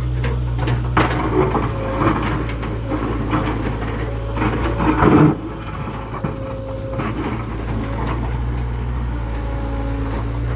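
Mini excavator's engine running steadily while the machine crunches and breaks up old wooden building material, with debris clattering; the loudest crunch comes about five seconds in.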